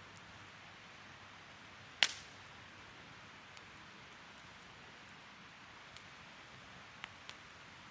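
Wood fire burning with a soft steady hiss; one loud sharp pop about two seconds in, then a few smaller crackles near the end.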